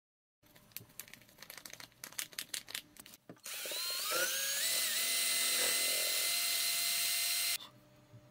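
A run of light clicks and taps, then an electric drill with a mixing rod spinning in a plastic cup of epoxy resin: its whine rises as it comes up to speed, runs steadily for about four seconds and cuts off suddenly.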